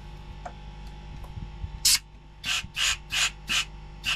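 Compressed air blown through the fuel lines from a nozzle in short hissing blasts. One blast comes about two seconds in, then a quick series of about three a second.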